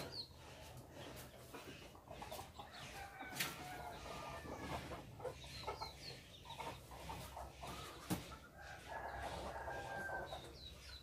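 Chickens clucking and short high bird chirps, faint, with a low rumble underneath and a couple of sharp clicks.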